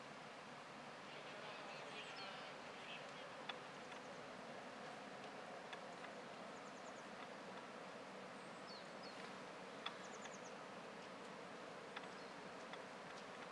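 Faint, steady insect buzzing, with a few short high chirps and several sharp clicks.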